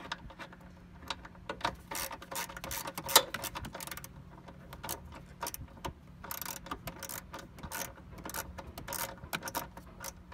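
Hand ratchet wrench with an extension turning a 10 mm bolt: bursts of rapid clicking, with one sharper clack about three seconds in.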